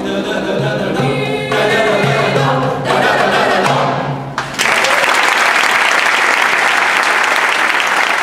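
Mixed choir singing and holding the closing chords of an Arabic song, cutting off about four and a half seconds in; the audience then breaks into loud applause.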